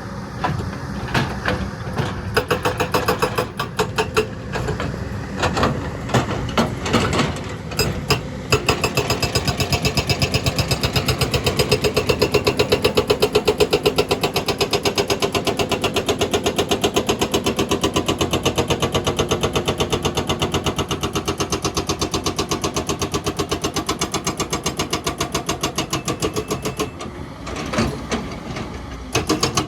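Excavator's diesel engine running at work, with a fast, even pulsing of several beats a second.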